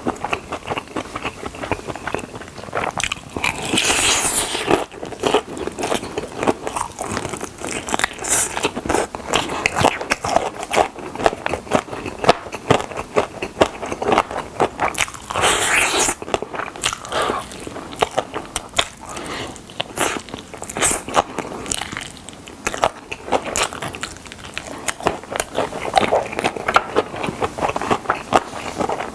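Close-up eating sounds: biting into crispy fried chicken drumsticks, with crunching of the skin and wet chewing, in irregular bursts and a few louder crunches.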